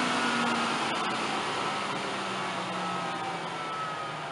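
Table saw switched off and spinning down: the motor and blade coast, their hum slowly falling in pitch and fading.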